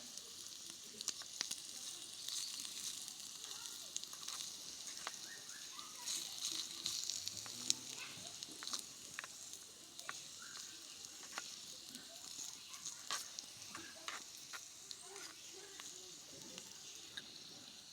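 Food frying in oil in a pan, sizzling steadily, with scattered sharp clicks of a spatula stirring against the pan.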